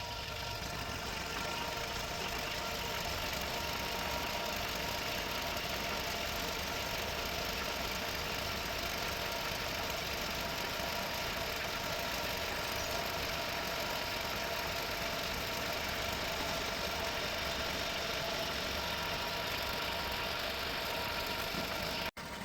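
An engine running steadily at a constant speed, an even drone with no change in pitch.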